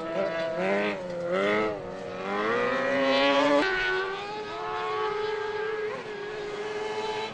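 Car-cross racing buggy engines revving hard on a dirt track, the pitch rising and falling with throttle and gear changes. The note climbs steadily, breaks off suddenly about three and a half seconds in, and gives way to a steadier engine note from a more distant buggy.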